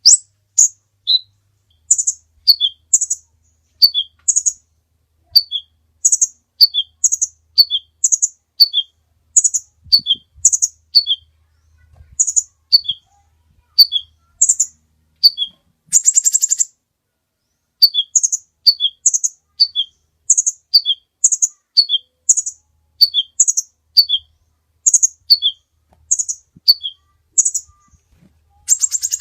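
Kolibri ninja sunbird singing a fast, repeated run of sharp, high two-note chirps, each a higher note dropping to a lower one, about one and a half pairs a second. A single buzzy rattle comes about halfway through, followed by a brief pause before the chirping resumes.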